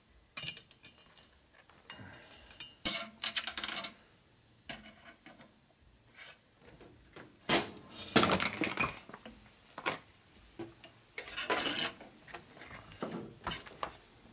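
Small steel valve-train parts, valve springs and spring-seat washers, clinking and clattering against each other and the workbench as a Milwaukee-Eight cylinder head is handled for a trial assembly, in irregular bursts with a few heavier knocks about eight seconds in.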